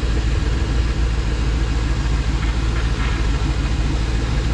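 GM LS V8 marine inboard engine running steadily, heard up close through the open engine hatch.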